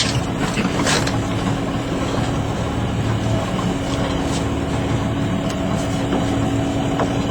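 Boat engine running steadily with a constant hum.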